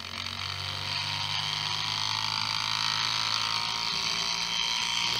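Small electric motor spinning up the steel flywheel of a gyroscopic motorcycle-stability model: a steady whir over a low hum that builds over the first second or two and then holds.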